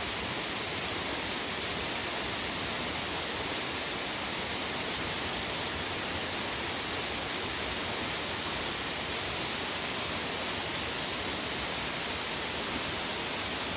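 Steady rushing of a waterfall, an even hiss that holds unchanged throughout.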